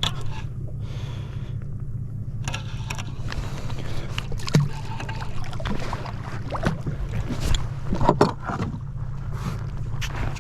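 Boat motor running steadily at low pitch, with water sloshing and scattered small knocks and splashes.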